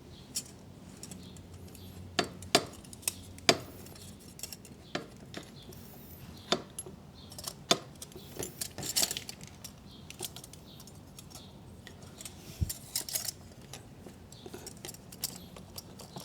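Irregular light metallic clinks and taps of exhaust pipe parts being handled and fitted together: the silencer going onto its pipe and hanger.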